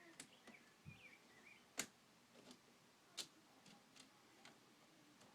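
Faint, scattered clicks and light knocks of plastic K'nex pieces, about eight in all at uneven spacing, as the suit is put on.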